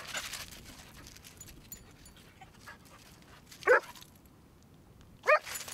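A dog at play giving two short, high-pitched barks about a second and a half apart.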